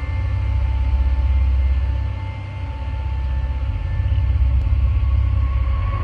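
Low, steady rumble heard through a doorbell camera's microphone, with a faint hiss above it.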